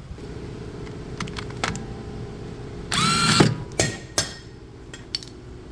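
A brief whir, like a small tool spinning, about three seconds in, followed by a few sharp clicks of metal parts being handled, over a steady low hum.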